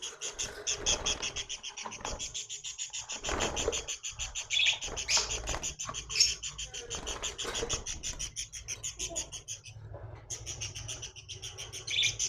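Parrots chirping rapidly and steadily, about seven or eight high chirps a second, breaking off briefly about ten seconds in, with some rustling underneath.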